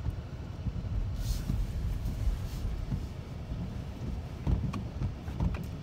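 Vehicle engine running, heard from inside the cab: a steady low rumble with a few knocks, the loudest about four and a half seconds in.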